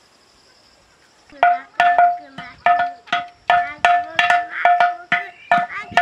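An upturned metal cooking pot drummed by hand, starting about a second and a half in: quick, uneven beats, about three a second, each with a short metallic ring.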